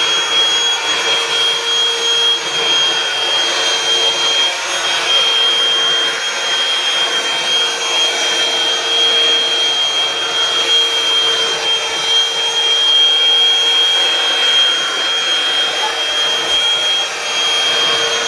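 Hoover Freedom FD22L cordless vacuum cleaner running steadily at full suction, a high-pitched motor whine over the rushing air noise.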